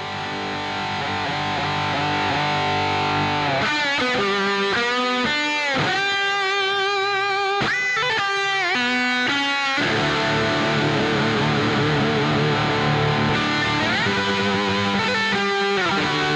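Music with electric guitar: sustained chords under a lead guitar playing bending, gliding notes, busiest in the middle.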